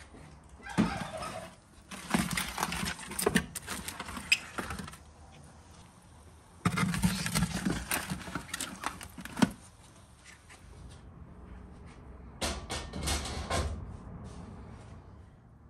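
A metal baking tray scraping and clattering as it is slid onto the floor of a wood-fired brick oven, ending in a sharp knock. Shorter stretches of rustling and clatter come before it, and another comes near the end as the oven door is handled.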